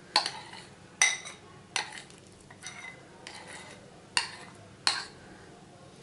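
Metal spoon clinking against a bowl while cream cheese is scooped and folded into whipped cream: about eight sharp clinks, each ringing briefly, roughly one every 0.7 s.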